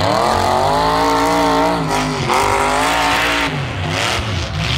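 Half-ton pickup's engine revving hard in a demolition derby, its pitch wavering at high revs and dropping about three and a half seconds in.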